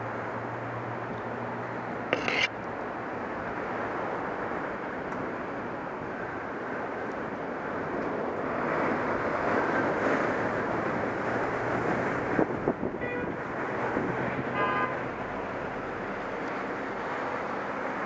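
Steady rumble of distant street traffic coming in through the bell tower's louvred openings, with a sharp knock on the wooden ladder about two seconds in and two short tooting beeps about two-thirds of the way through.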